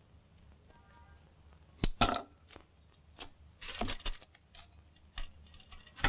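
A kitchen knife cutting a block of hashish on a wooden table: a handful of irregular sharp knocks and scrapes as the blade strikes and drags on the wood, the loudest about two seconds in.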